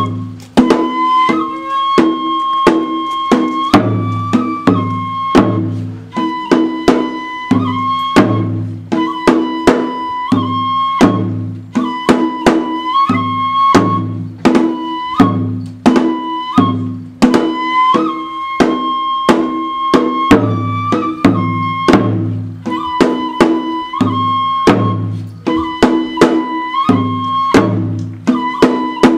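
Kagura accompaniment: a transverse flute playing long held notes in a repeating phrase over steady drum beats.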